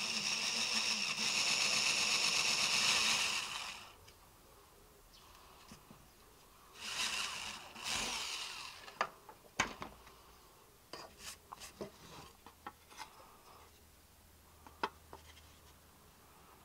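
Handheld electric drill boring through 1.0 mm aluminium sheet, running for about three and a half seconds, then a second shorter burst of drilling about seven seconds in. After that, scattered light clicks and knocks.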